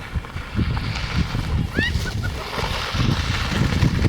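Wind buffeting the microphone in gusty low rumbles, with a short rising shout about two seconds in and a rushing hiss building near the end.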